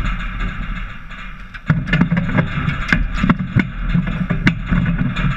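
Dek hockey play: sticks clacking and the ball knocking on the plastic sport-court tiles, a quick irregular run of sharp clicks, over a steady low rumble and hiss.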